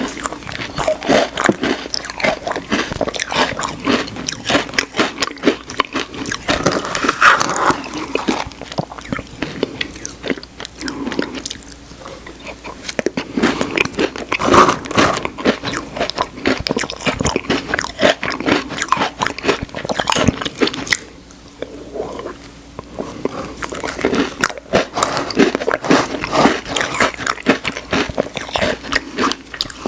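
Close-miked eating of Oreo ice cream: chewing and crunching of cookie pieces with dense, irregular wet mouth clicks, easing off briefly about two-thirds of the way through.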